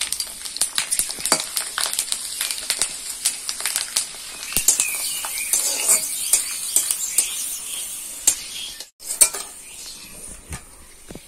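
Sun-dried potato chips frying in hot oil in a metal wok, sizzling steadily, while a metal spatula clinks and scrapes against the pan as they are stirred. After a brief break near the end the sizzling is quieter.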